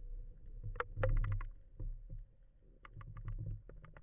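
Underwater sound heard through a speargun-mounted camera's housing: a low, patchy rumble of water noise with quick runs of sharp clicks, one about a second in and another near three seconds.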